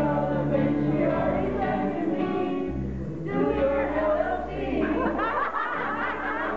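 An amateur group of voices singing a song together, backed by steady electric bass guitar notes. About five seconds in, the singing breaks up into overlapping voices.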